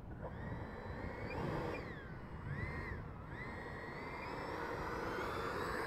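Electric ducted fan of a Freewing L-39 RC jet whining as it is throttled up: the pitch swings up and down a couple of times, then climbs steadily as power comes on to take off. Wind noise runs underneath.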